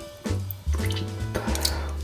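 Background music with a low bass line that changes note every half second or so. Under it, water sloshes and drips in a toilet bowl as a soft toy is pushed into it.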